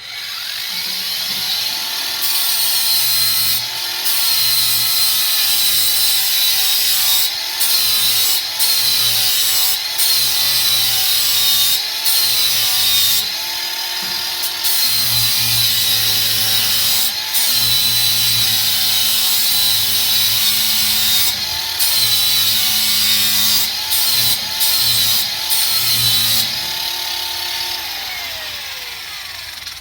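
Cordless 4½-inch angle grinder with a flap sanding disc grinding the edge of an old lawnmower blade to sharpen it: a steady motor whine that sags under load and picks back up each time the disc lifts off, over a gritty grinding hiss that comes and goes with the passes. Near the end the grinder is switched off and winds down.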